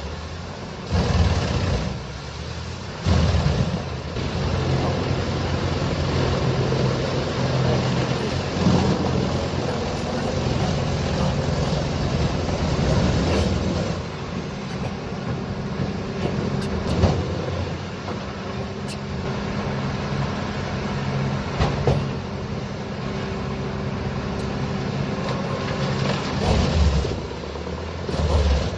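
Heavy diesel machine engine running under load, its revs swelling and easing, with a few sharp knocks of metal or wood.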